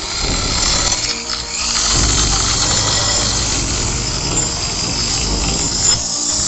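Drill-mounted wire cup brush spinning against a rusty steel axe head, a steady grinding whir as the wire scrubs off rust, easing briefly near the end as the brush comes off the blade.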